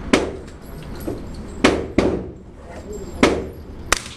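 Suppressed Sig MPX 9mm carbine firing American Eagle 124-grain rounds through a Gemtech Multimount suppressor. It fires single shots: five sharp reports, each with a short decaying tail, two of them close together in the middle.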